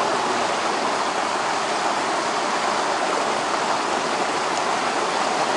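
Steady rushing of a fast-flowing stream's current, an even hiss of water with no sudden sounds.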